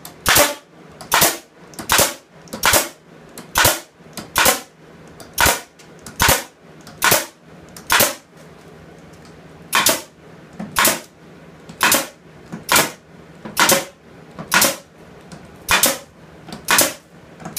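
Pneumatic trim nail gun firing into the wooden top bars of beehive frames held in an assembly jig: a sharp shot about once a second, around twenty in all, with a short pause about halfway through.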